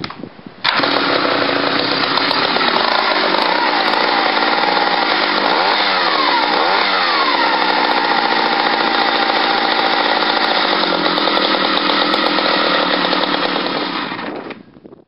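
1964 Partner R14 76cc two-stroke chainsaw catching about a second in and running loud and steady, its pitch dipping and rising a couple of times midway, then dying away near the end. The owner judges that it still sounds good.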